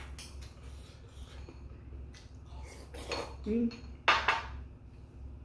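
Metal spoon clinking and scraping in a ceramic bowl, in short separate clicks, with a short, loud slurp from the bowl about four seconds in.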